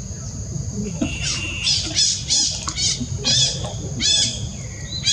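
Infant macaque crying in a run of about seven short, shrill squeals, starting about a second in. A steady high insect whine runs underneath.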